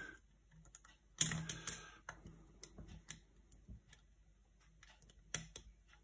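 Lock pick and tension wrench working the pins of a pin-tumbler lock cylinder held in a false set: a cluster of small sharp clicks about a second in, scattered faint ticks, and another couple of clicks near the end.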